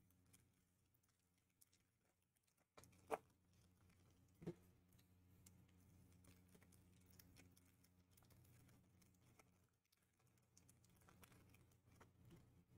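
Near silence: a low steady hum with faint light handling noises of trading cards, and two sharp clicks about three and four and a half seconds in.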